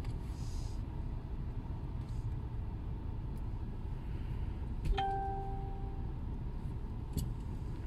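Steady low rumble of a car's engine and road noise heard inside the cabin as it rolls slowly. About five seconds in, a click is followed by a single ringing ding that fades over about a second.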